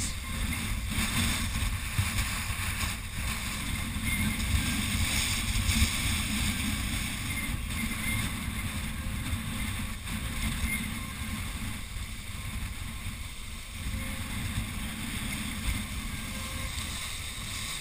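Wind buffeting the microphone over the steady wash of waves breaking against jetty rocks.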